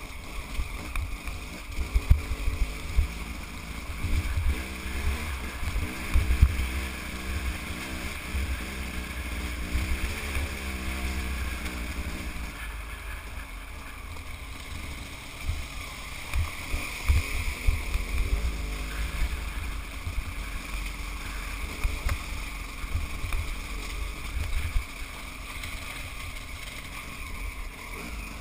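Off-road motorcycle engine running over a rough, rocky trail, mixed with wind rumble and knocks on the microphone. A pitched engine note wavers up and down and is clearest from about 3 to 12 seconds in.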